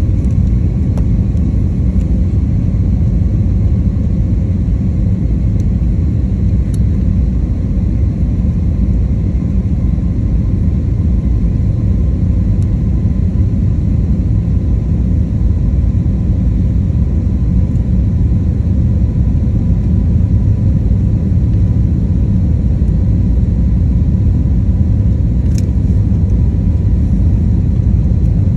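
Steady low rumble of an airliner's engines and rushing air heard inside the passenger cabin during descent to landing, with two faint clicks, one about 7 seconds in and one near the end.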